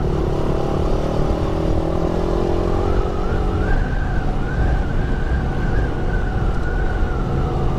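Motorcycle riding at speed with heavy wind rumble on the rider's microphone. The engine note climbs slightly over the first few seconds, and a thin high whine carries through the middle.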